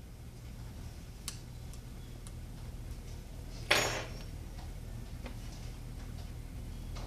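Small hard tools clicking and tapping against a hard work surface during a phone screen repair. There are a few light clicks, then one sharper clatter about halfway through, over a steady low hum.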